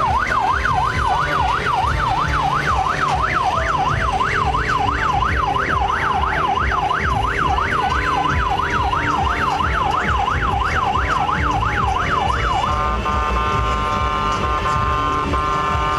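Electronic siren in a fast up-and-down yelp, about three sweeps a second, switching to a steady held tone about thirteen seconds in, over a low rumble.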